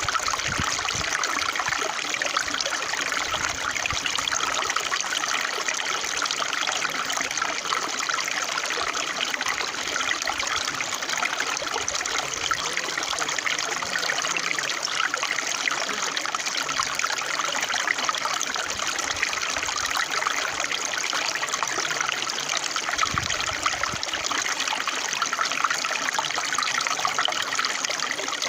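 Running water with a steady, unbroken trickling flow.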